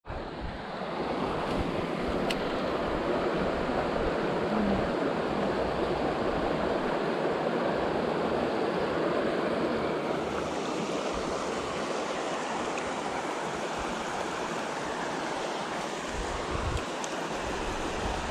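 Oak Creek running over its rocky bed: a steady rush of flowing creek water close to the microphone.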